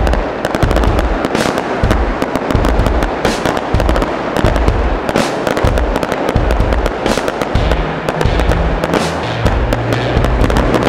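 Fireworks display: dense, continuous crackling and sharp bangs of bursting shells, with frequent low thuds.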